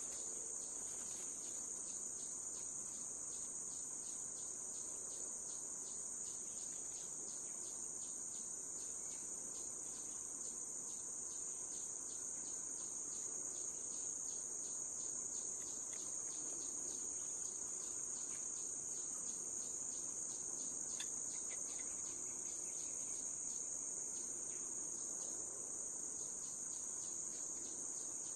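A steady, high-pitched chorus of insects buzzing without a break, with a faint regular pulsing beneath it.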